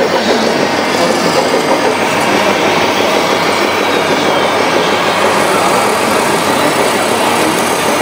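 Radio-controlled model tipper trucks driving, a steady mechanical whirring and rattling of their drives and gearboxes.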